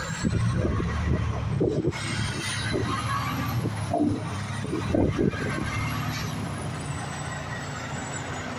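Diesel semi tractor pulling a 53-foot dry van trailer, its engine rumbling as it drives past close by and swings into a turn. There are a few short knocks in the middle, and the rumble eases off near the end as the rig moves away.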